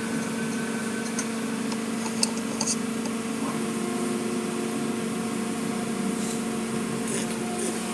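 Automatic car wash heard from inside the car: a steady machinery hum with the hiss of water spraying over the glass, and a few faint ticks a couple of seconds in.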